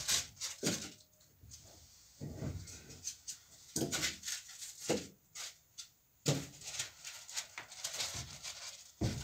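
Slabs of expanded polystyrene foam being handled and stacked: irregular rubbing and scraping with short squeaks as the pieces slide against each other, and a few knocks as they are set down on wooden boards.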